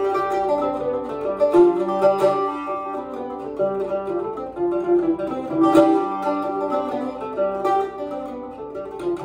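Irish bouzouki played solo, picking a fast Irish jig melody in quick, even notes, with the sound echoing in a stairwell.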